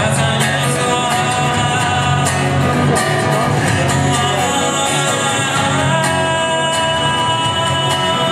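A rock band playing a song, with singing over guitar and a steady beat.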